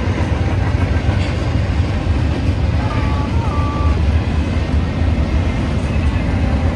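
Motorboat running underway: a loud, steady low rumble of engine and wind.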